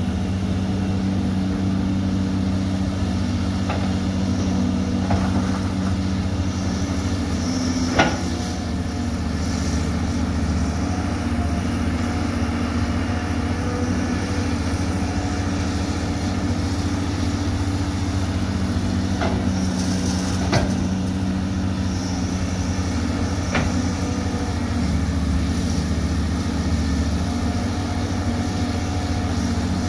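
Caterpillar 320D hydraulic excavator's diesel engine running steadily under load while it digs soil and loads it into a dump truck, with a few sharp knocks, the loudest about 8 and 20 seconds in.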